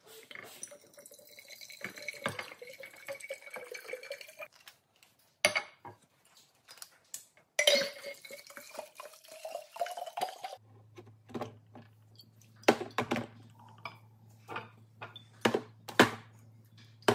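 Liquor poured from a bottle into a tall glass jar, twice, the second pour rising slightly in pitch. Then sharp glass clinks and knocks as the glass spirit jars are set onto the cocktail maker's base, over a low steady hum.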